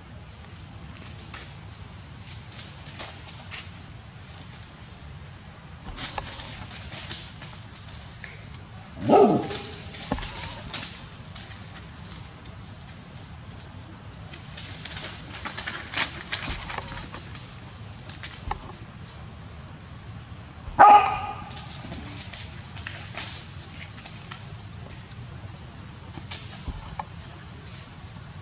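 Insects droning steadily in a high, even tone. Two loud, short animal calls cut through the drone, about nine and twenty-one seconds in.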